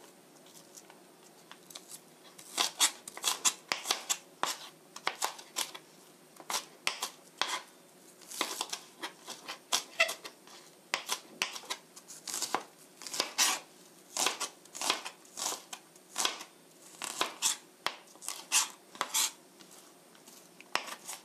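Chef's knife chopping onion on a plastic cutting board: sharp knife strikes on the board, several a second, in runs with short pauses, starting about two seconds in.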